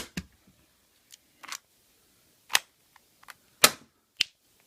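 About five sharp, isolated clicks or cracks, spaced roughly a second apart, with near silence between them.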